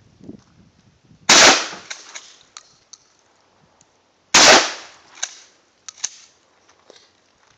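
Two 12-gauge shotgun shots about three seconds apart, each with a short ringing tail, followed by a couple of sharp clicks.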